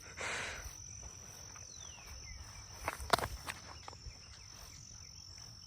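Steady high insect trilling, like crickets, in an open summer field, with one sharp crack about three seconds in.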